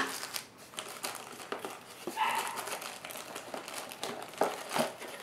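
Plastic packaging and bags crinkling and rustling as small camera accessories are handled, with a sharp click at the start and scattered short clicks and rustles after it.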